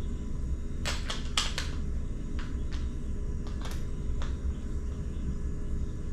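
Allen wrench clicking against a seat-bracket screw as the screw is driven back in: a quick run of about five sharp clicks about a second in, then a few single clicks, over a steady low rumble.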